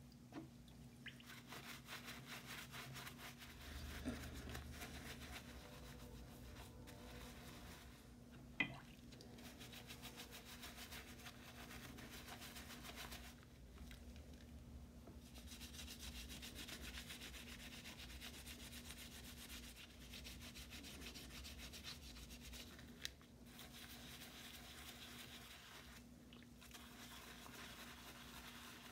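Stiff-bristled brush scrubbing hand plane parts wet with foamy degreaser: fast, steady back-and-forth bristle rubbing that pauses briefly twice. A sharp knock about a third of the way in is the loudest sound.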